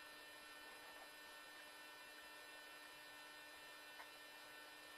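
Near silence with a faint, steady electrical hum, and one tiny click about four seconds in.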